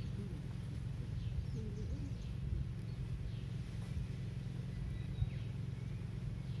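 Outdoor field ambience: a steady low rumble with faint bird calls scattered through it.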